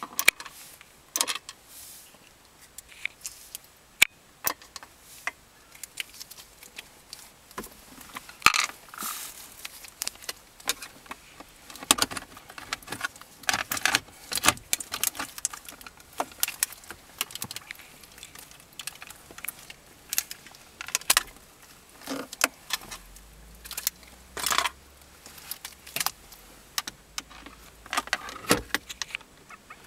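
Irregular sharp clicks, taps and light rattles of plastic centre-console trim and a screwdriver being handled as the storage pocket of a 2003–2007 Honda Accord is unscrewed and worked loose.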